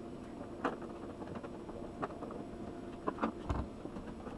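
Scattered faint clicks and knocks of hard plastic being handled and pried: the clip-on plastic back cover of an LED TV being levered off by hand, with one dull thud about three and a half seconds in.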